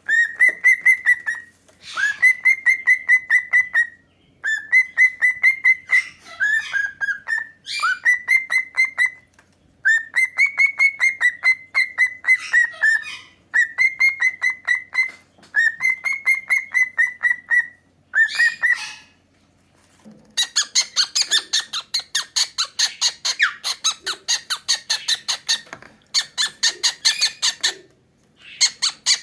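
Pet cockatiel calling in a string of short repeated phrases, each a rapid run of chirps at a steady pitch, with brief pauses between them. About two-thirds of the way through, the calling turns into a denser, harsher rapid chatter that stops shortly before the end.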